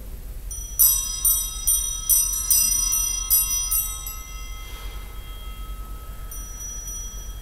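Altar bells (Sanctus bells) shaken by hand in about eight rhythmic rings over three seconds, then left to ring out, marking the elevation of the chalice at the consecration of the Mass.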